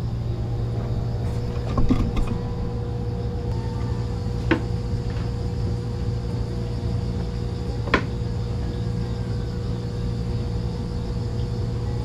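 An engine or motor running steadily with a low, even hum, with a few short sharp knocks about two, four and a half and eight seconds in.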